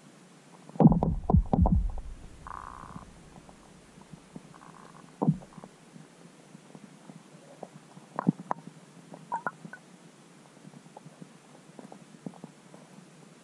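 Low, rumbling thumps and knocks picked up by an underwater camera under the ice: a heavy cluster about a second in, a single knock around five seconds, and a few lighter clicks later, over a faint steady hiss.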